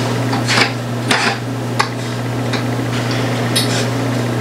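Metal clinks and scrapes of pliers working on a small metal part, a few sharp ticks spread through, over a steady low hum.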